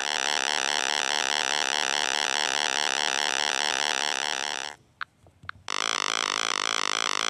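Retro 8-bit style synthesized helicopter sound effect: a steady, rapidly pulsing electronic buzz. It cuts out for about a second a little before halfway through the second half, then comes back as a lower, different pulsing tone for the next helicopter.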